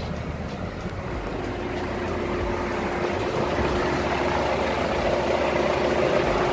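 Buick Encore's 1.4L Ecotec turbocharged four-cylinder idling with no belt squeal on its new serpentine belt. It gets steadily louder as it moves from the cabin to the open engine bay, and a steady hum joins about a second and a half in. The idle is slightly rough, which the owner puts down to the mass airflow sensor being left unplugged.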